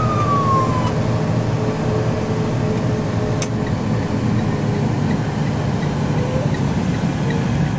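Inside the cab of a Rosenbauer fire truck under way: a siren's falling wail dies away in the first second, then the truck's engine and road noise drone on steadily.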